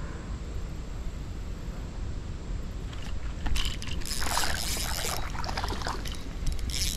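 Water splashing loudly for about two and a half seconds midway, with a shorter splash near the end, over a steady low rumble.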